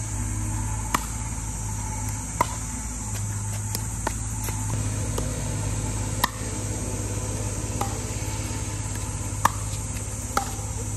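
Pickleball paddles striking a plastic pickleball in a rally: about seven sharp pops, each with a short ring, a second or two apart, over a steady low hum.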